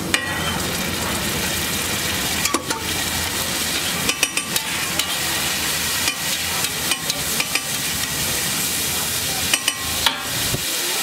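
Egg and spice mixture sizzling on a large flat griddle, with a steel spoon and then a long flat metal spatula clinking and scraping against the griddle surface in irregular sharp clicks.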